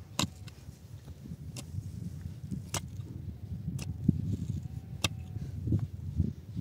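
A mattock chopping into hard, stony soil while a hole is dug: about five sharp strikes, roughly one a second, over a low rumble.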